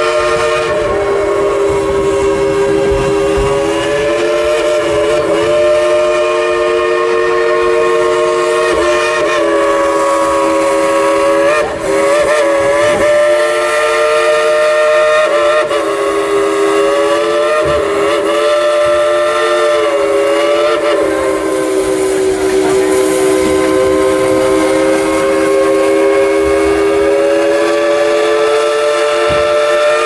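Steam locomotive chime whistle on Dollywood Express #70, a former White Pass & Yukon 2-8-2, blown in one long unbroken blast. It sounds a chord of several notes, and the pitch sags and recovers a few times midway.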